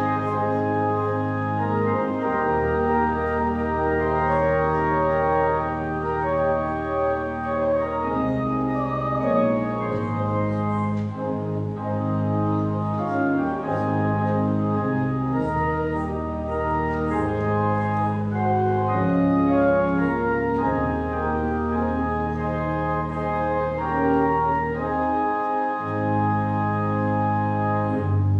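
Church organ playing a hymn: sustained chords over a bass line that steps to a new note every second or two.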